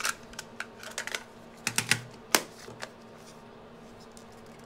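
Small sharp clicks and taps from handling and opening the case of a Sanyo MGP-44 Walkman cassette player. There are about a dozen irregular clicks in the first three seconds, the loudest about two and a half seconds in.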